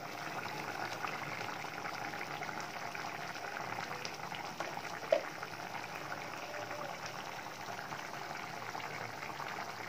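Small-fish curry simmering in an uncovered karahi on a gas burner: a steady bubbling and crackling. A single short click about five seconds in.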